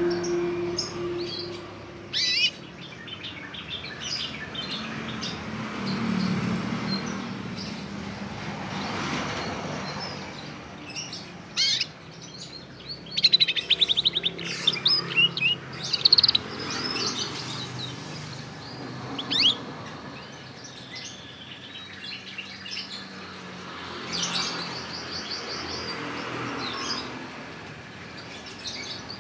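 Young male canary, a three-month-old Lizard and Scotch Fancy cross, practising its song: scattered chirps and short trills, with a run of fast rattling trills near the middle, the 'griwik' trill it is learning.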